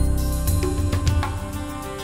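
Instrumental background music: sustained tones with a few struck notes over them.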